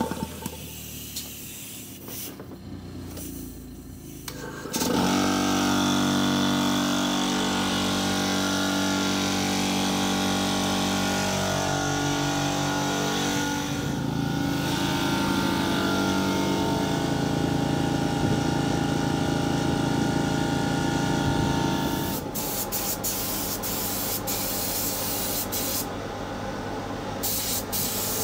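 Hose-fed paint spray gun hissing as it sprays paint, over the steady hum of a motor that starts about five seconds in. About three-quarters of the way through the hum drops away and the spray gun's hiss is loudest, starting and stopping.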